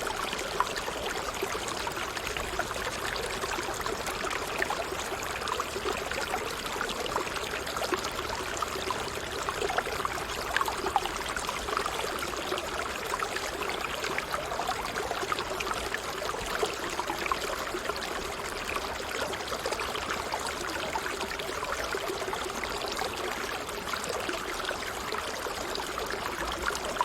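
Stream running downhill over waterfalls: water splashing and rushing steadily, without a break.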